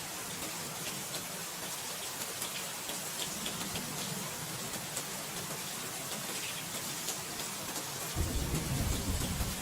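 Steady rain falling with scattered drop ticks. A low rumble of thunder comes in near the end.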